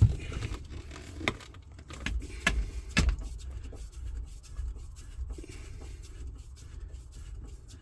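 Knocks, clicks and rustling from hands fitting a box and screws under a car's dashboard, with a sharp knock at the very start and a few more over the next three seconds.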